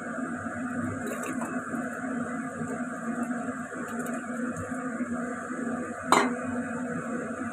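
Stainless steel bowl knocking against a ceramic soup pot as pieces of soaked fish maw are tipped in, with light clinks about a second in and one sharp knock about six seconds in, over a steady background hum.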